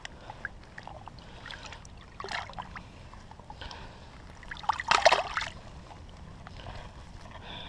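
Water splashing and sloshing as a largemouth bass held by the lip is moved through shallow water, in several short bursts with a louder splash about five seconds in.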